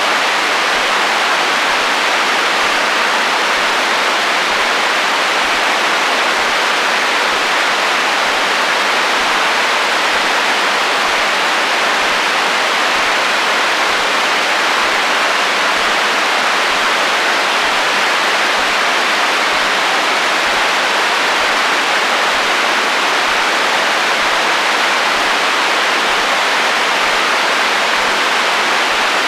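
Radio receiver hiss and static from interference on the HF band: a steady, even rush of noise.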